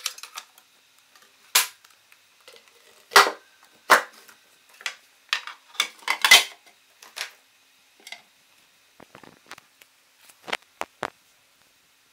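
Hard plastic parts of a Kenwood ice cream maker attachment (bowl, paddle and clear lid) knocking and clicking together as they are handled and fitted. About a dozen sharp clacks, the loudest about three, four and six seconds in.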